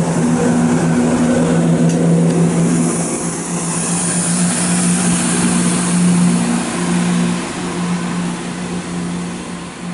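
ScotRail Class 170 Turbostar diesel multiple unit moving away down the line, its diesel engines giving a steady low drone that slowly fades, with a rushing hiss from the train in the middle of the pass.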